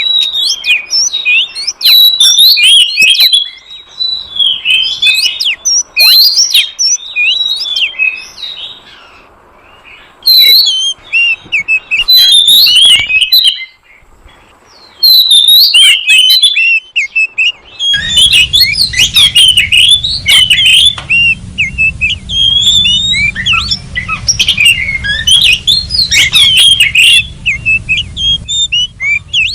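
Oriental magpie-robin singing: loud, rapid phrases of varied whistles and chirps, with short pauses about 9 and 14 seconds in. From about 18 seconds in, a steady low hum runs under the song.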